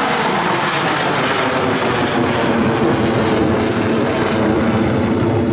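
Loud, steady jet noise from Blue Angels F/A-18 Hornets, twin-engine fighter jets, flying by.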